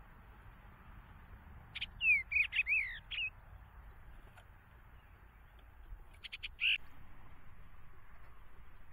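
Eastern bluebird calling: a short phrase of soft, falling warbled notes about two seconds in, then a brief run of quick notes past the middle.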